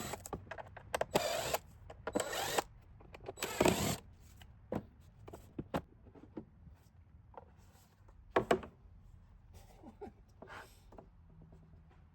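Scattered clicks and knocks with a few short scraping rustles as the air filter housing of a 2012 VW Passat is opened and worked at by hand. The scraping comes in three stretches in the first four seconds, and after that there are only sparser knocks.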